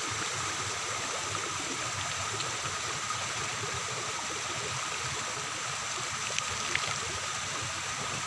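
Steady rushing of flowing floodwater, even and unbroken, with a faint steady high tone over it and a couple of light clicks a little past six seconds in.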